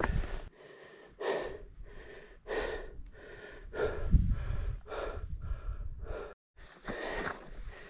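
A hiker breathing hard in quick, heavy breaths about once a second, from the effort of scrambling up a steep boulder field, with low bumps on the microphone under some breaths.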